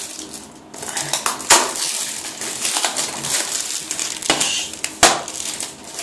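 Plastic shrink-wrap being torn and crinkled off a Blu-ray case, with two sharp clicks, about a second and a half in and about five seconds in.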